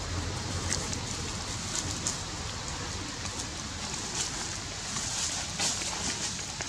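Dry leaf litter crackling and rustling under monkeys' footsteps, a few short crunches about a second apart over a steady outdoor hiss.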